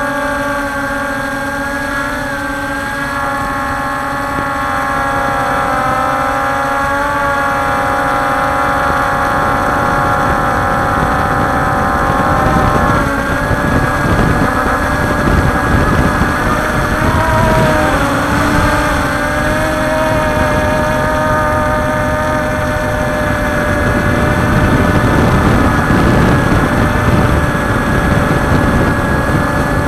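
Multirotor drone's motors and propellers whining steadily, heard from its onboard camera, with a rush of wind. Several tones shift in pitch together now and then as the drone manoeuvres.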